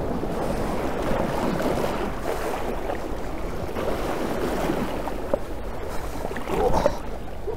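Seawater swishing and sloshing steadily around a person's legs as they wade through it.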